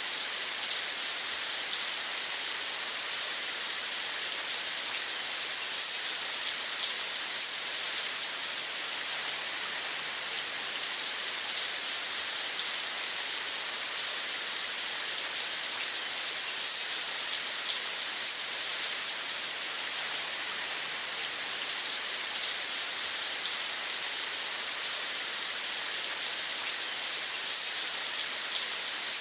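Steady rain falling, a dense even hiss of drops with no change in strength.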